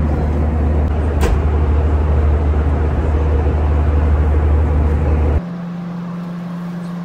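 Airliner cabin noise: a steady deep rumble of the engines with a hiss of rushing air, and a brief click about a second in. Near the end it cuts suddenly to a quieter, steady hum.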